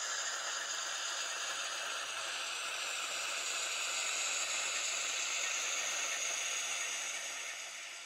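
Sound decoder of an N-scale Fleischmann M62 model diesel locomotive playing its diesel engine sound through the model's tiny speaker, thin and hissy without bass, mixed with the rattle of the model running on the track. It fades near the end as the locomotive moves away.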